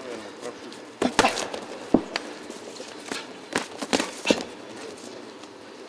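Boxing gloves smacking in an exchange of punches: a quick, irregular run of sharp smacks from about a second in until past the middle, then a lull.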